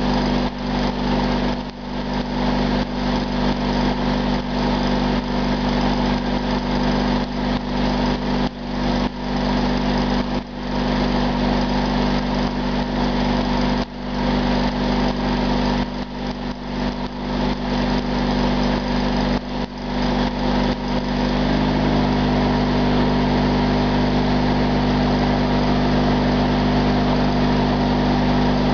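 Stick welding: the arc crackles and sputters irregularly over the steady drone of the welding machine. About two-thirds of the way through, the arc stops and the machine drones on alone, steady and slightly changed in tone.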